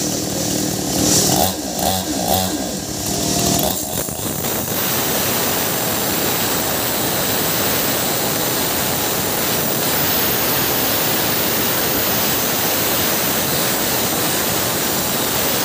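Maestro Plus CS6500L two-stroke gasoline chainsaw cutting into a hard, weathered tree stump. For the first few seconds the engine note rises and falls as the throttle changes. After that it runs steady at full throttle with the chain biting through the wood.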